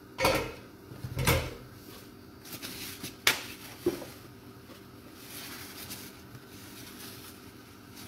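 Steel pot lid set down on a pan: two dull knocks about a second apart, then a sharp clink and a softer one as plates and utensils are handled on the counter.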